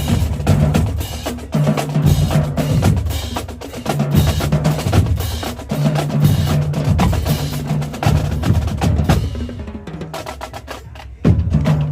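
Marching drumline of snare and bass drums playing a fast cadence, with clicky wood-block-like strokes and steady low bass-drum notes. Near the end the drumming thins out and then comes back in with a loud full-line hit.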